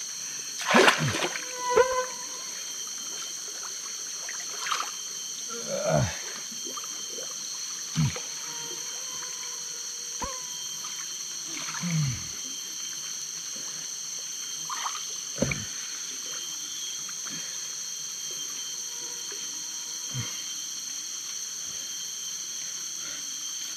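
Steady high chorus of forest insects, with brief water drips and splashes from a gill net being handled at the river, the loudest a couple of times about a second or two in.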